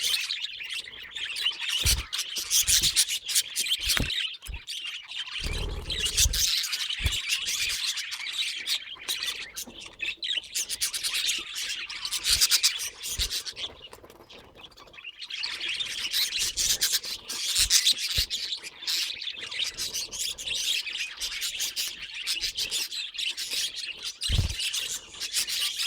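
Budgerigar chattering and warbling: a dense run of rapid, scratchy chirps with a brief lull about halfway through, and a few short low thumps.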